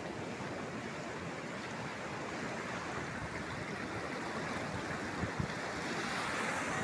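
Ocean surf breaking and washing in over a rocky reef. It makes a steady rush that swells a little louder near the end.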